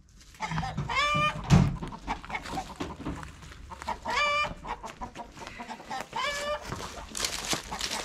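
Farm animals calling: short, wavering high calls every two to three seconds, with a heavy thump about a second and a half in.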